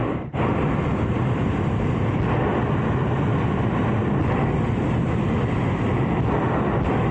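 Hot-air balloon's propane burner firing, a steady loud roar with a brief gap just after the start.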